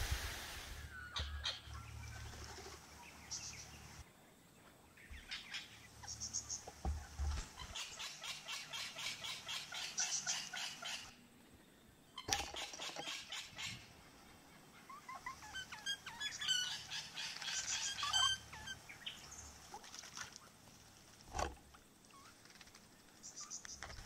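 Several wild Australian birds calling around a garden bird bath: a fast run of repeated high chirps, then a burst of chattering, squeaky calls. A low wind rumble on the microphone comes and goes, and there is one soft thump near the end.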